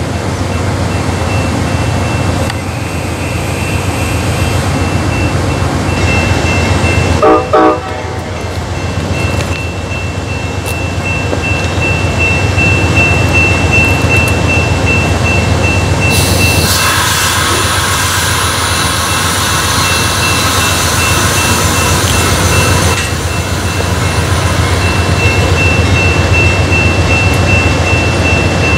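Amtrak passenger train passing at speed: a steady rumble of wheels on rail with a thin, steady high squeal, and a short loud note about seven seconds in.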